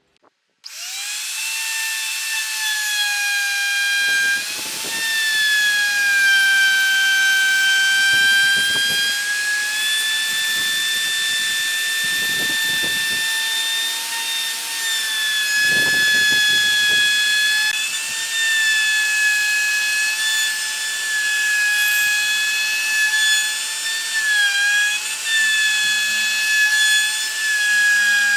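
An electric woodworking power tool starts up and runs with a steady high whine, its pitch sagging slightly now and then as it cuts into wood. Short rougher patches of cutting noise come every few seconds.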